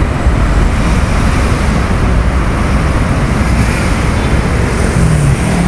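Loud, rough wind rumble on an outdoor microphone mixed with road traffic noise, with a low hum rising briefly near the end.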